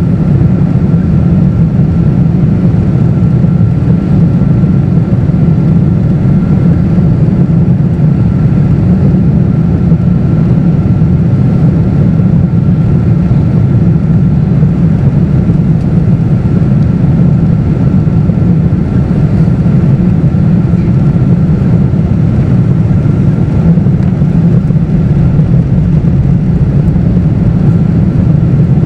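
Steady low roar inside the cabin of a Boeing 777-200ER, from its Rolls-Royce Trent 895 engines and the airflow, with a faint steady whine above it.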